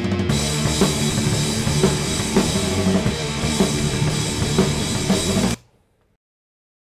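Raw, unmixed multitrack recording of a metal song playing back, drum kit to the fore with kick and cymbals over a dense band sound. It cuts off suddenly about five and a half seconds in.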